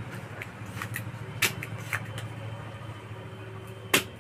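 Soldering work on a circuit board, clearing old solder from the pads: light scraping with scattered sharp clicks and taps, the loudest near the end, over a steady low hum.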